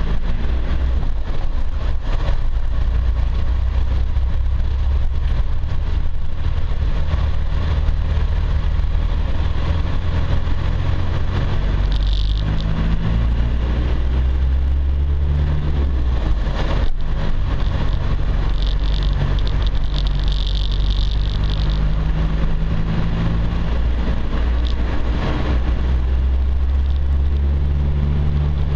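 Land Rover 4x4 engine running at low revs while driving a rough track, a steady low drone whose pitch shifts slightly with the throttle. A brief high-pitched squeal comes about twelve seconds in, and another lasts a few seconds around twenty seconds in.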